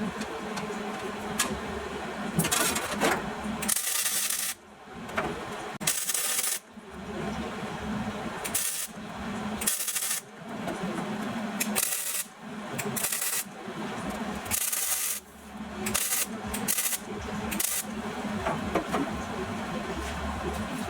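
Sheet-metal fabrication work on a truck's transmission tunnel: irregular noisy bursts about a second long that stop and start every second or two, over a steady low hum.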